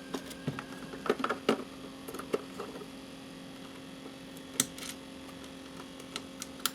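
Irregular small clicks, taps and scrapes of a hand tool picking at a screw stuck in a plastic projector case, with a cluster of them about a second in. A steady hum runs underneath.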